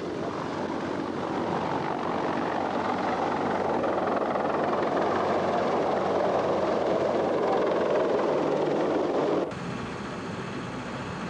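Large military helicopter's rotors and engines, a heavy steady noise that grows louder as it hovers low with a backhoe slung beneath it. The sound cuts off abruptly about nine and a half seconds in, leaving a quieter steady background noise.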